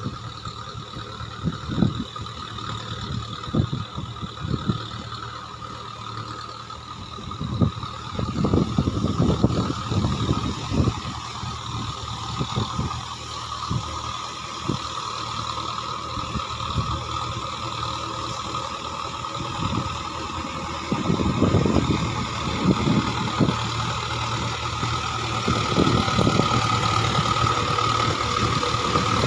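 Mahindra Arjun 4WD tractor's diesel engine running under load as it drives a rotavator through a flooded, muddy paddy field, with a steady high whine throughout. It grows louder over the last third as the tractor comes closer.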